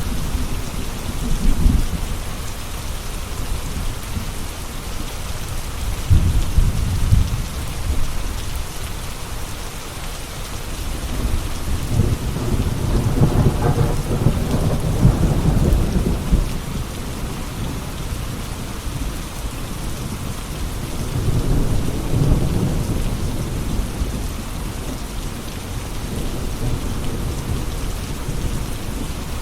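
Steady rain falling, with low rolls of thunder rising and fading several times; the longest and loudest roll comes around the middle.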